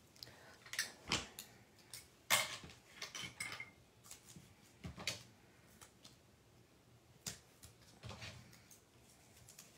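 Craft supplies being handled on a desk: a handful of separate sharp taps and clicks spread out, with a short rustle about three seconds in.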